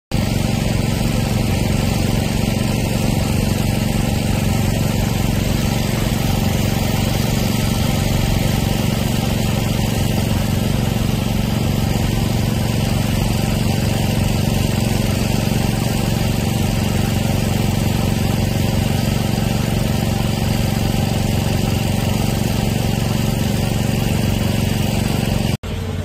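Engine running steadily: a loud, even drone that holds at one pitch and breaks off sharply just before the end.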